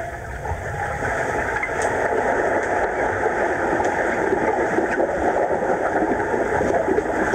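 Muffled, steady rushing and hissing of pool water heard through a camera under water, growing a little louder about a second in as swimmers move through the pool.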